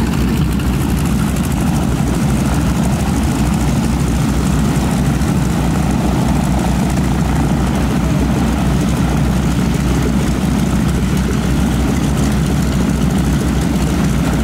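Radial engines of North American T-6 Texan trainers running at low taxi power: a steady, low-pitched propeller-engine sound.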